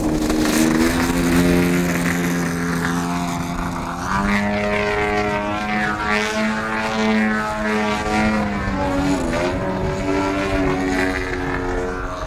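Pilot RC Extra 330LX model plane's ZDZ 97cc two-stroke petrol engine on an RE3 tuned pipe, running hard with its propeller on the take-off roll and climb-out. Its pitch steps up about four seconds in, then swings up and down through the rest as the plane flies its manoeuvres.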